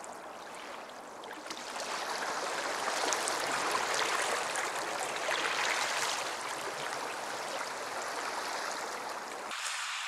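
Small, calm sea waves washing against the rocks and concrete tetrapods at the shoreline: a gentle swell of surf that builds about two seconds in and eases off again.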